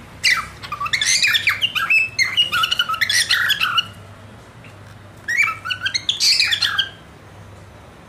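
Cockatiel chirping in a fast run of short, rising and falling calls for about four seconds, then a shorter run of calls a second later.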